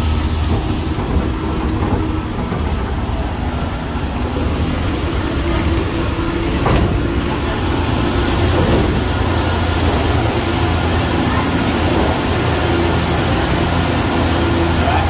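Open-sided studio tour tram running, heard from a seat on board: a steady low drone of the moving vehicle, with a thin high whine joining about four seconds in and holding on.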